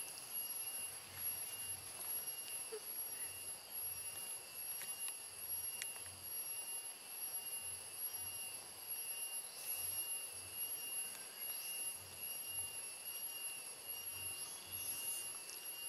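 Steady high-pitched drone of forest insects, several thin tones held without a break, with a few brief faint bird chirps near the middle and toward the end.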